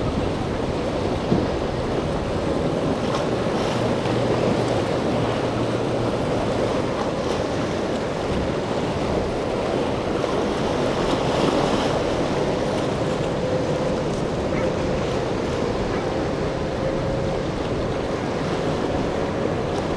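Steady wind noise on the microphone and churning surf, with the Mercury 350 outboard of a passing bowrider running underneath as it crosses choppy water.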